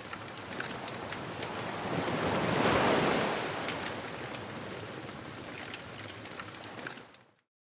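Beach bonfire ambience: surf washing in, one wave swelling to its loudest about three seconds in, with a wood fire crackling over it. The sound fades out shortly before the end.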